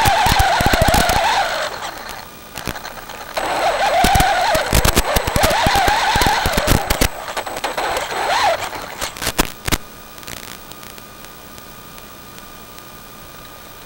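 Brushless motor and drivetrain of a Traxxas 4x4 Slash VXL RC truck whining, rising and falling with the throttle, with scattered clicks and knocks of the tyres and chassis over rough dirt and leaves. It eases off about two seconds in, picks up again, then winds down and stops near ten seconds, leaving only a faint steady hum.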